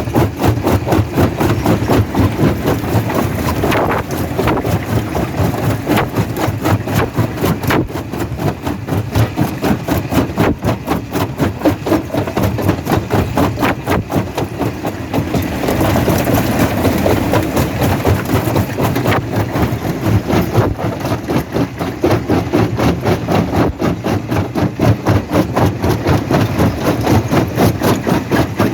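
Quarry rock crusher running under load: heavy machinery with a fast, even pulsing, and a few sharper cracks of stone breaking in the crushing chamber.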